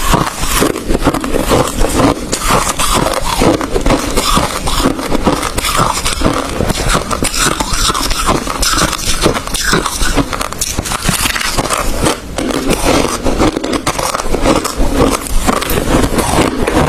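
Close-miked crunching of crushed ice being chewed, a dense, continuous run of loud crackles and cracks.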